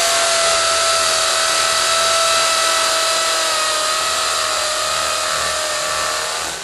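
Corded electric drill with a masonry bit running at speed while drilling into a wall, a steady motor whine whose pitch sags a little under load in the second half, then stops at the very end.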